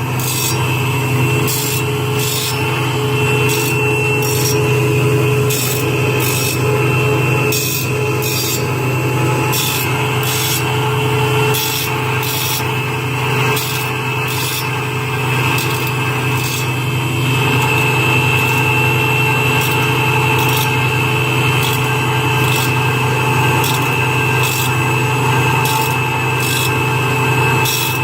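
Circular saw blade sharpening machine running: a steady motor hum, with the grinding wheel scraping the blade's teeth in an even rhythm of roughly one stroke a second as it works tooth by tooth.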